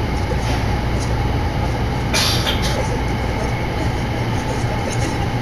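Tokyo Metro Yurakucho Line subway train running between stations, heard from inside the car: a steady low rumble of wheels on rail. About two seconds in there is a brief hiss lasting half a second.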